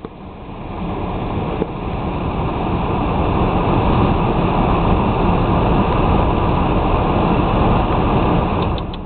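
Wind buffeting the microphone: a loud, rushing roar that builds over the first few seconds, holds, then drops off suddenly near the end.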